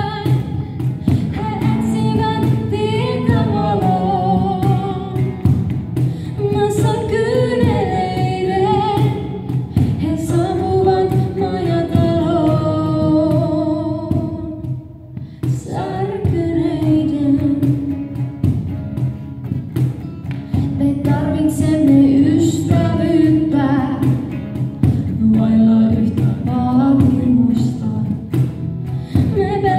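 A woman sings a Finnish gospel song live, accompanied by strummed acoustic guitar and cajon. The singing breaks off briefly about halfway through.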